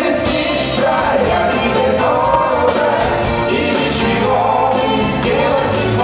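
Live 1970s Soviet vocal-instrumental ensemble pop song: electric guitar, bass guitar and drums playing together, with a man singing into the microphone.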